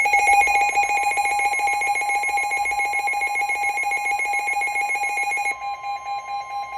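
Weather radio alerting for a tornado warning: a loud, rapidly pulsing electronic alarm. About a second in it is joined by a steady single tone, the NOAA Weather Radio warning alarm tone. The pulsing alarm drops in level about five and a half seconds in.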